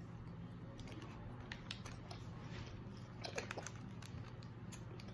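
Quiet room with a low steady hum and faint scattered clicks and ticks, a couple slightly louder a little past the middle: the soft mouth sounds of a child chewing a gummy candy.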